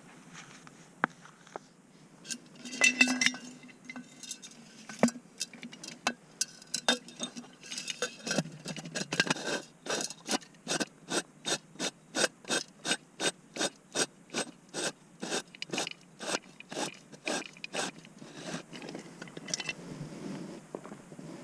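A hiker's footsteps scraping on a frozen trail: a few irregular scuffs and a louder scrape early on, then a steady walking rhythm of about two steps a second that fades out near the end.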